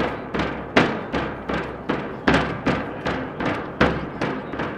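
Drums beating a steady cadence, about two and a half hits a second, with a louder accented hit every fourth beat.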